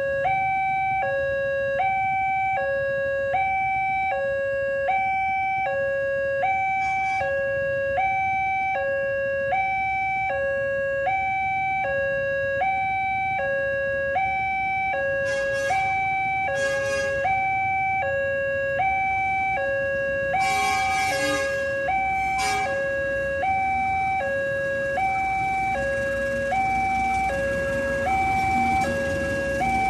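Railway level-crossing warning siren sounding a steady two-tone hi-lo alarm, switching between the two pitches about every 0.8 seconds. A few short noisy bursts cut in about halfway through, and background noise rises near the end.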